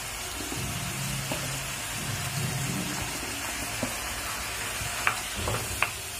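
Chopped tomatoes and capsicum sizzling in butter in a frying pan as mashed boiled potatoes are scraped off a steel plate into it with a spatula. A few sharp clicks of the spatula on metal near the end.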